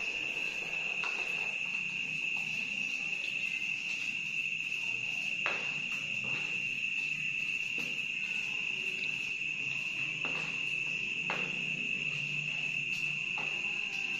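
A cricket trilling steadily at one high pitch without a break, with a few faint knocks about five, ten and eleven seconds in.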